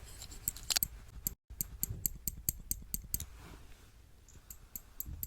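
Sharp clicks and snips from art tools handled close to the microphone. A brief dropout comes about one and a half seconds in, then a quick, even run of clicks at roughly five a second, easing into softer rustling after about three seconds.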